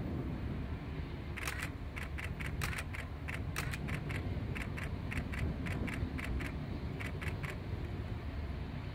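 Camera shutter firing in a continuous burst, about four clicks a second for some six seconds, over a low steady rumble.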